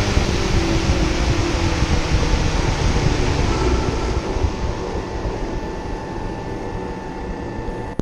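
Spindle moulder running, a loud, steady machine roar with faint steady tones in it, easing off gradually over the last few seconds.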